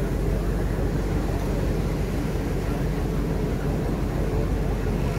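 Fishing boat under way: its engine running with a steady low rumble, with wind and sea noise over it, while the gill net pays out over the side.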